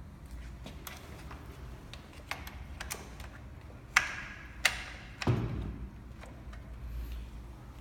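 Small clicks and taps of electric-scooter parts being handled during assembly, with two sharp clicks about halfway through and a dull thump just after.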